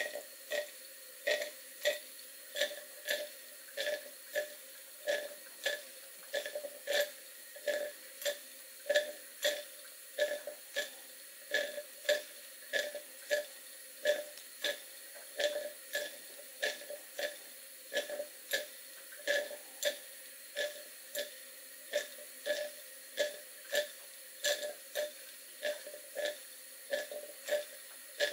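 Cotswold Heritage model beam steam engine running slowly on live steam, its exhaust chuffing through a chuff pot at an even beat of about two chuffs a second.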